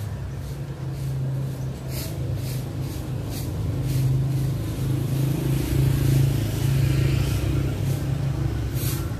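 Motor vehicle engines running in street traffic: a steady low hum that grows louder about halfway through.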